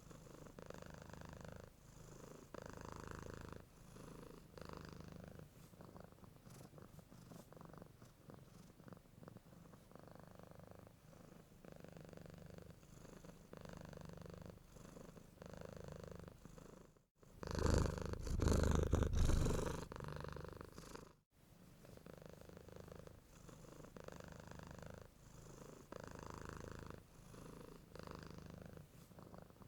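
Domestic cat purring close up, swelling and fading with each breath about every one and a half to two seconds. About seventeen seconds in, the sound cuts out abruptly to a much louder, closer purr for about four seconds, then cuts back just as suddenly.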